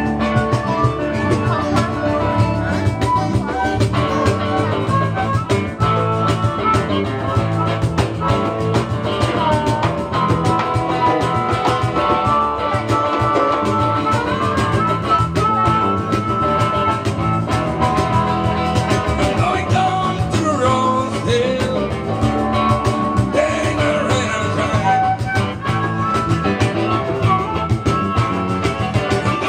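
Live band playing a blues-rock number, with a harmonica's held and bending notes over drums and bass.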